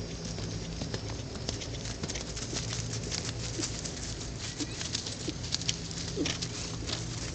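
Faint, irregular hoofbeats of a horse loping around a barrel on grass and dirt. A few short bird calls come through in the middle, over a steady low hum.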